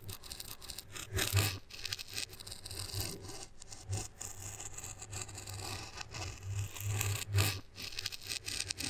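Continuous scraping and rasping broken by many short ticks, with the sound played backwards.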